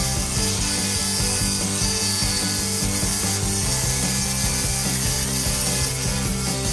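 Scroll saw running, its blade reciprocating steadily as it cuts a curve through a pine board.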